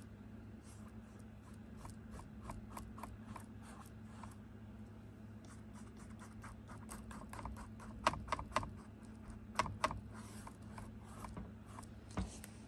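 Paintbrush brushing acrylic paint onto a canvas: a rapid run of short, scratchy strokes, with a few louder dabs or taps around the middle. A faint steady low hum sits underneath.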